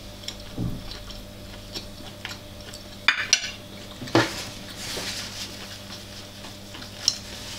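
Eating utensils clinking and scraping against a bowl of noodles during a meal: scattered light clicks, with a few sharper clinks about three to four seconds in.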